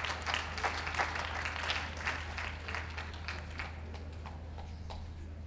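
Audience applauding: scattered hand claps that thin out and die away in the last couple of seconds.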